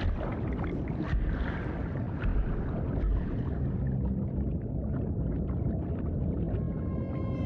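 Boat on open water: a dense low rumble of water and hull noise with a few scattered knocks. Near the end a steady held tone with overtones comes in.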